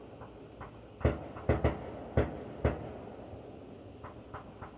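A handful of sharp, irregular knocks and clicks from hard objects being handled, about five close together in the first half and a few fainter ones near the end.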